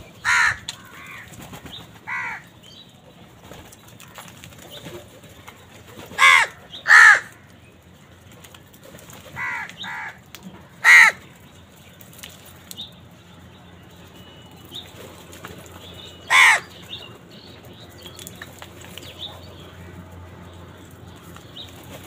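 A flock of house crows cawing: about seven loud, single harsh caws spaced a few seconds apart, with quieter calls from other crows and wing flaps between them.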